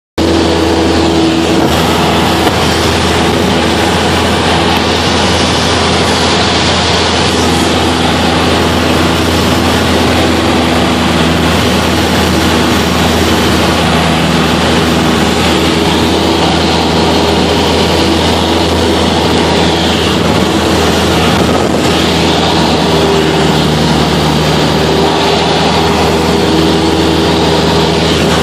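Cabin noise of a Cessna 172SP in flight: its four-cylinder Lycoming engine and propeller running steadily under a rush of wind, the pitch shifting slightly a few times, heard from inside the cockpit.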